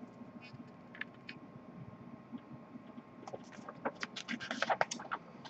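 Paper rustling and crinkling as the pages of a glossy promotional booklet are handled and turned. A few faint clicks come first, then a quick run of crackles in the second half.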